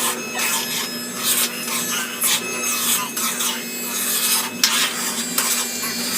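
Repeated scraping strokes, irregular, about two a second.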